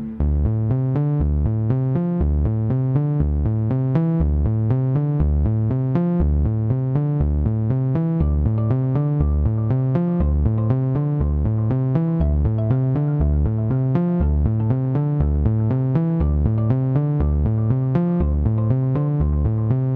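Background music with a steady beat, a bass line and repeating electronic keyboard notes.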